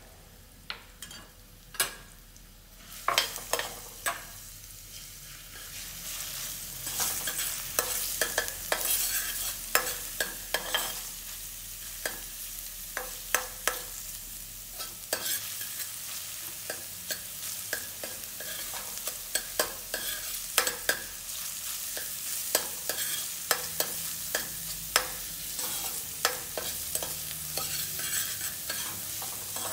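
Minced garlic sizzling in hot oil in a pot while a metal spatula stirs it, scraping and tapping the pot over and over. The sizzle starts a few seconds in and grows fuller by about six seconds.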